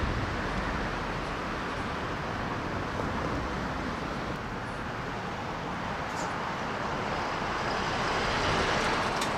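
Steady distant outdoor din, a wash of traffic-like noise across a city and shipyard, with a couple of faint ticks in the second half.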